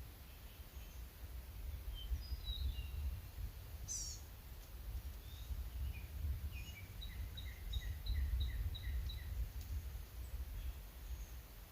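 Birds calling over a steady low rumble: scattered chirps and a run of short notes repeated evenly, about three a second, near the end.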